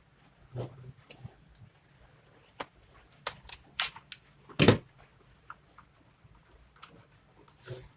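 Scattered clicks and knocks of a Lenovo G470 laptop's plastic case and parts being handled during disassembly, the loudest a heavier knock a little past halfway.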